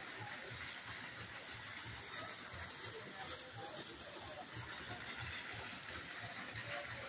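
Steady outdoor background noise: an even hiss with an irregular low rumble underneath.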